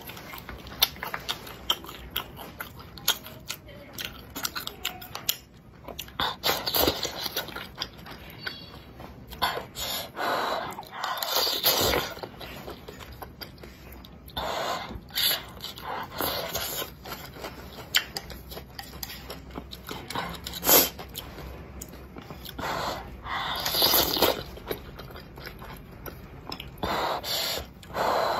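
Close-up eating sounds of wontons in chili-oil broth: several wet slurps of about a second each, with chewing and sharp little clicks and smacks in between.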